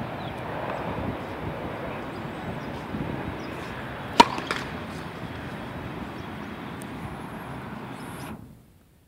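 A tennis racket strikes the ball on a serve: one sharp crack about four seconds in, with a fainter knock just after. A steady background hiss runs underneath and cuts off abruptly near the end.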